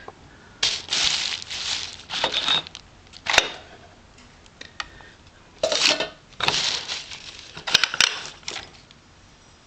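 Small brass knickknacks being lifted out of a box and set down: several short bouts of rustling and scraping with sharp metallic clinks, the clearest about three and a half seconds in and again around eight seconds.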